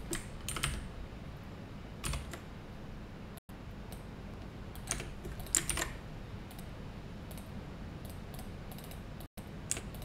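Computer keyboard typing and key clicks in short, irregular bursts, over a steady low background hum that cuts out briefly twice.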